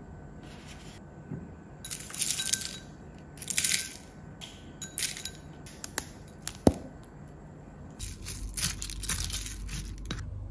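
Cereal flakes are tipped into a ceramic bowl of yoghurt in a few short crunchy rustles, then come a couple of sharp clicks. Near the end a spoon stirs through the crunchy flakes, scraping and clinking against the ceramic bowl.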